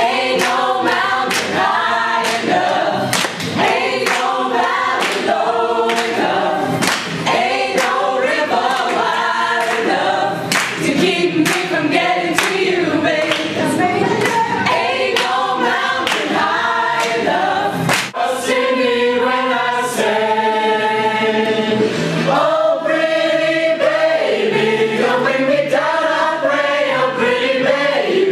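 Small choir of young voices singing a cappella, with sharp percussive hits keeping a beat. About twenty seconds in, the voices hold a long steady chord before the rhythm resumes.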